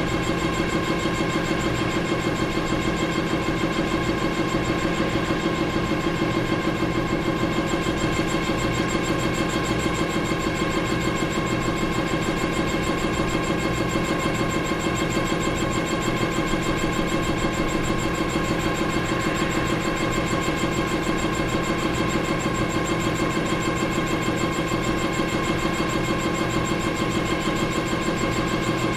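Combustion-engine air compressor running steadily at a constant pace: a continuous mechanical drone with a fast, even pulse underneath.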